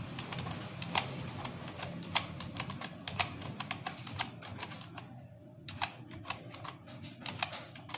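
Computer keyboard being typed on: quick, irregular key clicks, with a short pause a little after five seconds in, over a faint steady hum.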